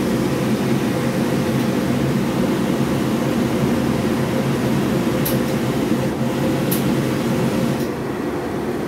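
Steady motor hum of a steam-ironing station, its steam generator and pressing table running, with a few brief hisses partway through as steam is let out of the iron.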